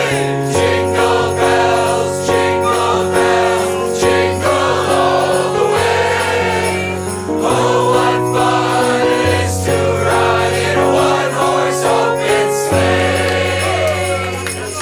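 Christmas carol sung by a small group of voices together, with piano and jingle bells shaken along.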